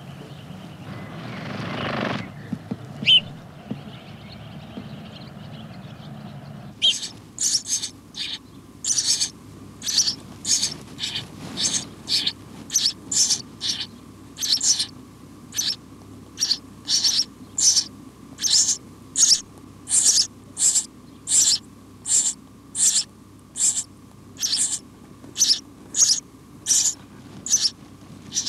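House sparrow nestlings begging in the nest with a rapid run of short, shrill calls, about two a second, starting about seven seconds in. Before that there is a brief rushing noise and a single chirp.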